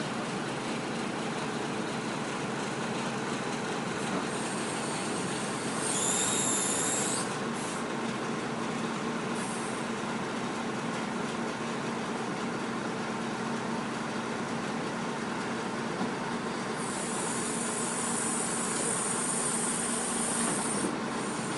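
Truck-mounted Epsilon timber crane with a clamshell bucket working, its engine-driven hydraulics running with a steady hum. High-pitched squeals come in twice: briefly about six seconds in, and for a few seconds near the end.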